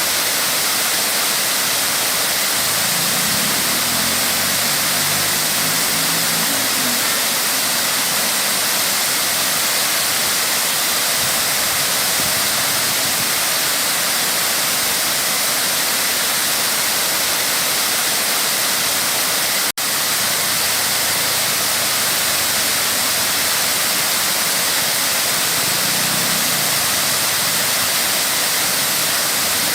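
Waterfall rushing steadily, a dense even roar of falling water. A low engine hum swells and fades twice underneath, and the sound cuts out for an instant about two-thirds of the way through.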